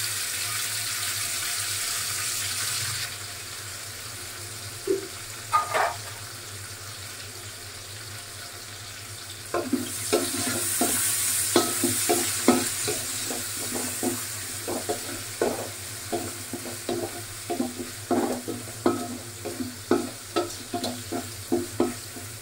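Tomatoes sizzling as they fry in hot oil with spices in a cooking pot, the hiss dying down after about three seconds. From about halfway through, the sizzling picks up again while a utensil stirs, knocking against the pot about twice a second.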